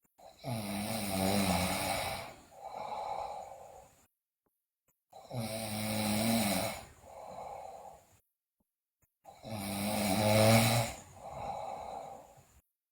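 A sleeping girl snoring loudly: three snores about four and a half seconds apart, each a low buzzing snore of about two seconds followed by a shorter, quieter breath.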